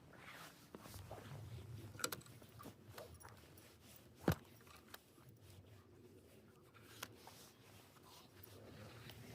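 Faint handling noises: scattered small clicks and knocks, with a sharper knock about two seconds in and a louder one a little over four seconds in.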